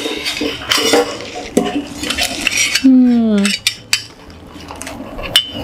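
Stainless steel spoon rests clinking and clattering against each other and the steel rack as they are handled, with a short metallic ring near the end.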